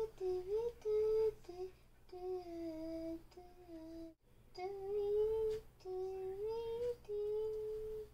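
A person humming a wordless tune: held notes that slide up and down in short phrases with brief pauses between them, and a sudden short break about four seconds in.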